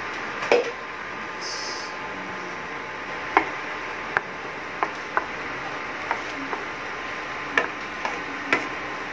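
Wooden spatula stirring a thin broth-based sauce in a nonstick frying pan, tapping and scraping against the pan in about ten irregular knocks over a steady hiss.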